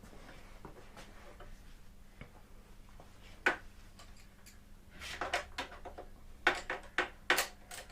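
Metal tools and parts clicking and clanking as the motorcycle is taken apart: a single sharp knock, then a run of quick clinks a few seconds later.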